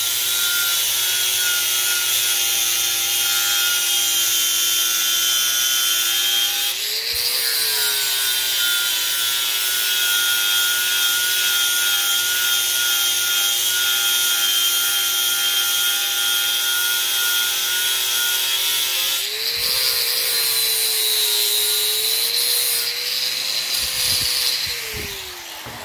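Angle grinder with a flap disc sharpening the cutting edge of a steel lawn mower blade held in a vise: a steady motor whine with the hiss of the disc on the steel. The pitch rises briefly twice, as the load comes off the disc, and falls away near the end as the grinder winds down.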